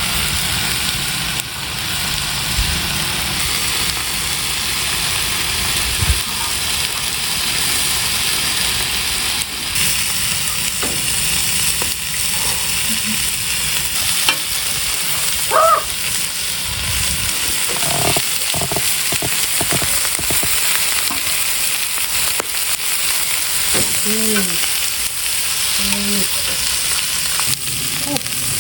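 Lamb ribs and potatoes frying on a cast-iron cauldron lid over a strong fire: a steady, continuous sizzling hiss.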